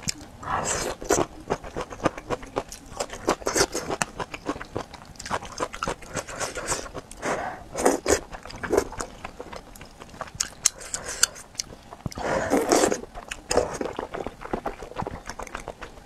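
Close-miked eating sounds from a spicy hot pot: wet chewing and crunching, with several slurps of noodles, the longest about three quarters of the way through.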